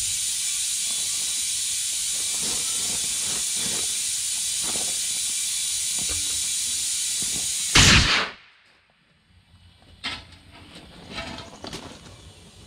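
Compressed air hissing steadily, then a short, loud blast of air about eight seconds in that cuts the hiss off: a homemade air tank with a ball valve being used to seat the bead of a truck tire on its rim.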